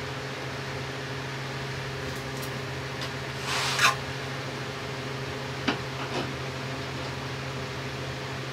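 A steady low machine hum, like a fan running, with a short rustle about three and a half seconds in and two light clicks around six seconds, from gloved hands working at the oil cooler mount under the motorcycle.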